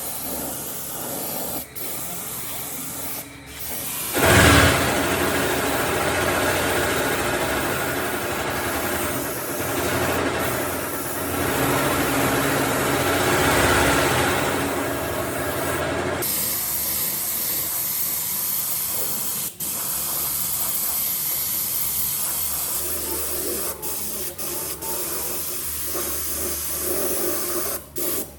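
Steady spraying hiss, loudest from about 4 to 16 seconds in, broken by several abrupt cuts.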